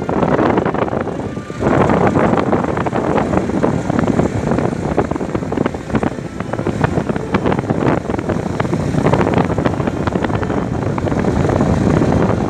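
Rushing wind and road noise from a moving vehicle, with wind buffeting the microphone; the noise dips briefly about a second and a half in.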